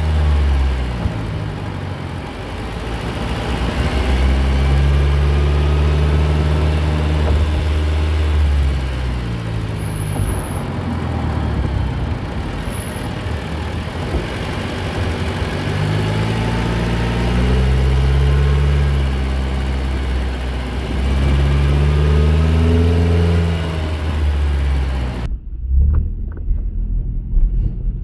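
Honda Accord VIII's 2.4-litre K24 four-cylinder accelerating on the road, heard under the bonnet at its homemade intake with a K&N filter and the intake resonator removed. The engine note repeatedly climbs in pitch and then settles. About three seconds before the end the sound switches to a muffled version as heard inside the cabin.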